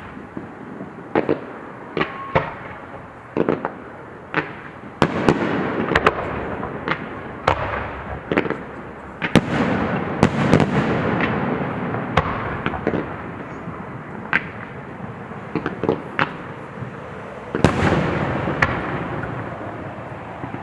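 Aerial fireworks exploding in a steady barrage: sharp bangs and cracks one after another, each trailing off in a long rolling echo, with denser, louder volleys about 5, 10 and 17 seconds in.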